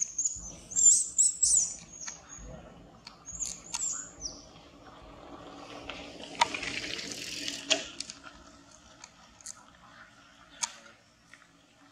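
Baby macaque giving a run of shrill, high squeals in the first two seconds and again about three and a half seconds in: fear and distress calls at a threatening larger monkey. A few seconds of hissing rustle with sharp clicks follow in the middle.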